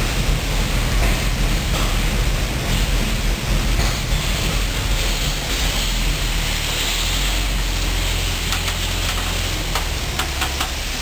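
Panther tank's Maybach V12 petrol engine running with a deep, steady rumble and hiss as the tank slowly manoeuvres on its tracks, the engine note shifting a couple of times. A few clanks near the end.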